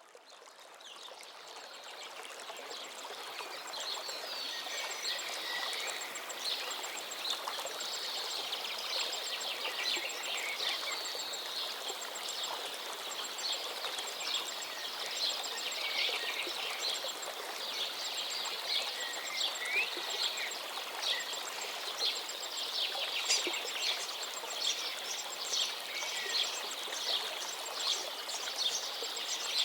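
A flowing river's steady rush of water, fading in over the first few seconds, with birds chirping throughout.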